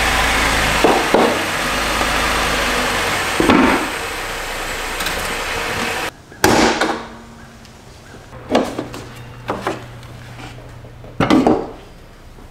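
A loud, steady rushing noise with a low hum under it runs for about six seconds and stops suddenly. Then come several separate knocks and clunks, the loudest near the end, as a car hood is raised and propped on its rod.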